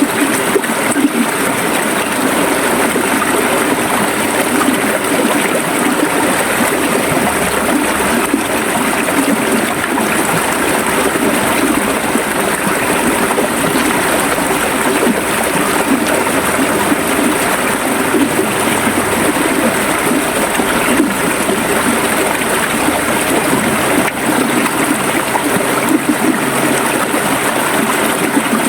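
River water flowing steadily over rocks, a constant rushing and gurgling.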